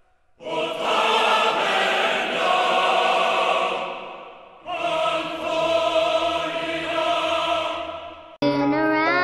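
Choral music: voices holding long chords in two swells, the first fading out about four seconds in and the second following straight after. Near the end it cuts off sharply into a different, lighter sung tune.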